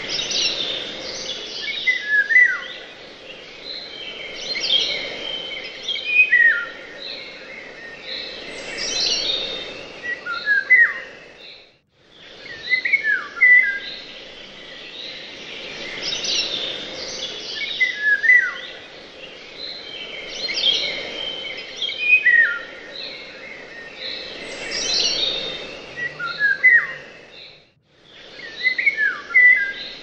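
Small birds chirping and singing, with many quick high notes and short downward-sweeping calls. It is a recording that repeats, and the sound cuts out briefly twice.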